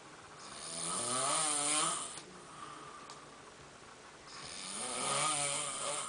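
A person snoring: two long snores about four seconds apart, each swelling and then fading, with a hissing breath and a buzzing pitch.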